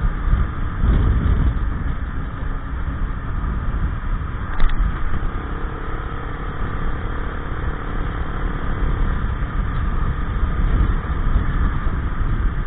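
Gilera Nexus 500 maxi-scooter's single-cylinder four-stroke engine running at steady road speed through its CVT drive, freshly fitted with a new belt and variator rollers, mixed with heavy wind rumble on the bike-mounted microphone. A single short click about halfway through.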